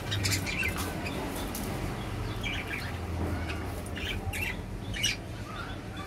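Caged budgerigars chirping and chattering in short, scattered calls, with one sharper call just after five seconds, over a low steady hum.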